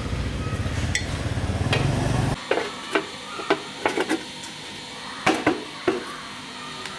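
A motorcycle engine running with a low pulsing rumble that cuts off abruptly about two and a half seconds in. After that come sharp metal knocks and clinks, about eight over three seconds, like tools striking metal parts.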